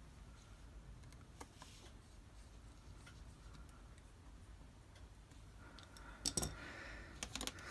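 Faint ticks and clicks of a precision T5 Torx screwdriver driving in the tiny screws of the trackpad cable shield, then a few louder clicks and clatter about six seconds in.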